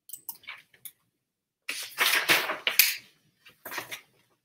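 Pages of a picture book being turned and handled: a few light taps, then a long rustle of paper about two seconds in and a shorter rustle near the end.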